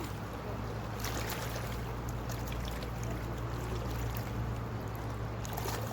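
Steady outdoor water noise of a small river, with a constant low hum underneath and a few faint clicks.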